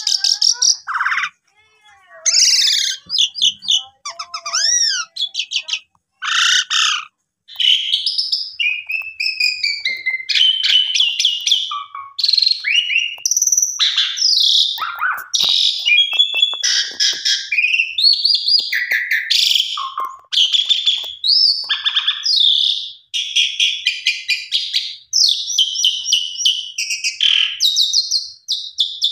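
Asian pied myna singing a long, varied song of whistled glides, warbles and fast, harsh rattling notes, with two short pauses in the first few seconds and then almost no break.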